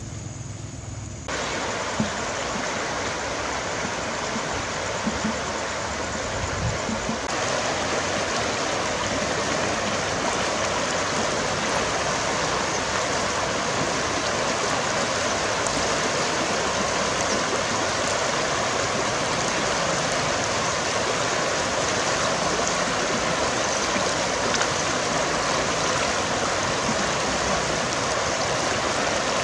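Shallow river running over stones: a steady rush of flowing water that comes in abruptly about a second in, after a quieter stretch.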